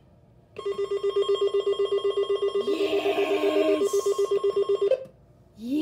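Alert Works EAR-10 NOAA weather alert radio sounding its alert-test alarm: a loud electronic beep pulsing very fast, about nine beeps a second, starting about half a second in and cutting off suddenly near the end. A person's excited voice rises over it midway.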